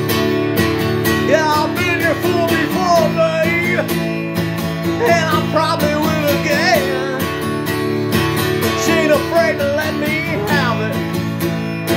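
Band music in an instrumental break: a lead line of sliding, bending notes over strummed guitar, with a steady low drone underneath and a regular beat.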